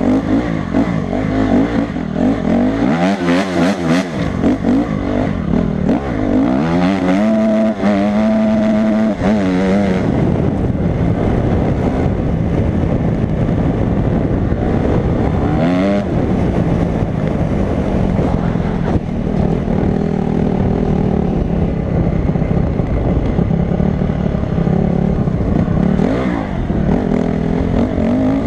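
Honda CRF250 dirt bike's single-cylinder four-stroke engine running under load while being ridden, its revs rising and falling again and again as the throttle is worked.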